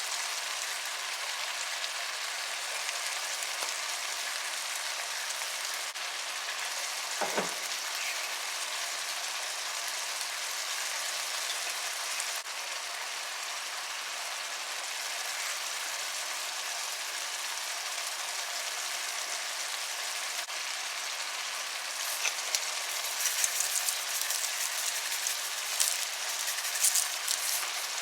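Tomato and onion stew base sizzling in hot oil in a pot, a steady frying hiss. About seven seconds in there is a brief tone falling in pitch, and in the last several seconds sharper crackles and spatters break through.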